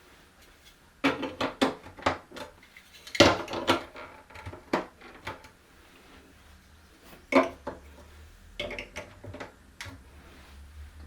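Marble run pieces being handled and fitted together: bursts of clicking and clattering with short quiet pauses between them.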